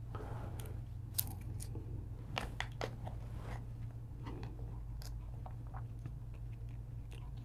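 Small clear plastic zip-lock bag crinkling and crackling as fingers pull it open, a scatter of sharp clicks over a steady low hum.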